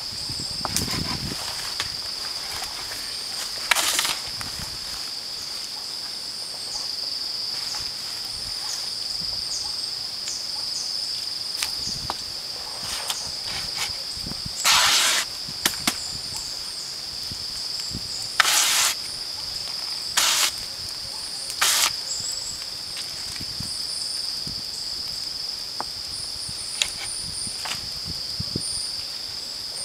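Strips of abaca sheath pulled under the blade of a hand-operated wooden stripping knife, giving five short scraping swishes spread through the stretch, with small knocks and clicks between. A steady high-pitched insect drone runs underneath.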